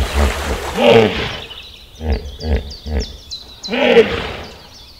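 Hippopotamus calling: deep grunting honks, the two loudest about a second in and about four seconds in, with a run of short deep pulses between them.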